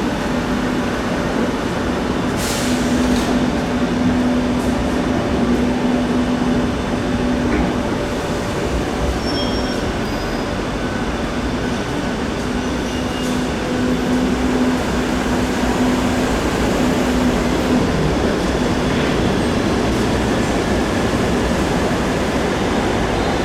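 Passenger train running through a station: steady rolling and wheel noise with a low electric hum that fades in and out.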